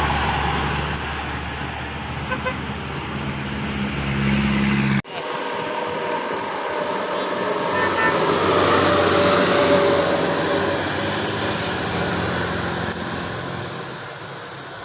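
Tour bus engine running with a steady low hum. After an abrupt cut about five seconds in, a bus passes close by: its noise swells, peaks about halfway through and fades, with a few faint horn tones.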